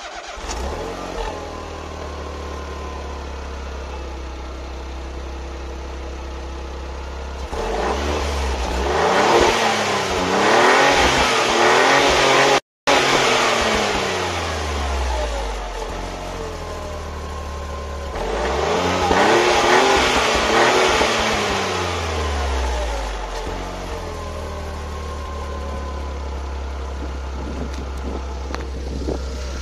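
Renault Twingo 3's 0.9 TCe turbocharged three-cylinder engine running through an aftermarket Elia exhaust: idling steadily, then revved up and let fall back twice, about eight and eighteen seconds in, each rev held for a few seconds before settling back to idle.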